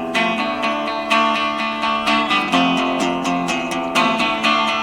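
Acoustic guitar strummed in a steady rhythm, about four strums a second, with chords changing between the sung lines of a song.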